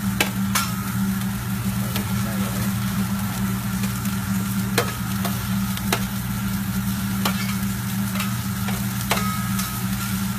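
Food sizzling on a hot teppanyaki griddle, with irregular sharp clicks of metal spatula and knife striking the plate, over a steady low hum.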